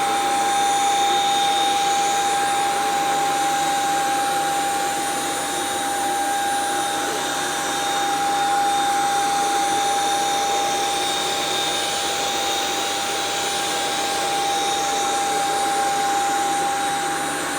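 Hoover SmartWash carpet washer running on carpet: a steady motor whine over a rushing noise, its loudness swelling and easing slowly.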